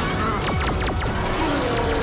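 Electronic action score under sci-fi sound effects for the speaker-bodied monster's sonic attack: a quick string of falling zaps about half a second in, another near the end, and a slower falling tone in the second half.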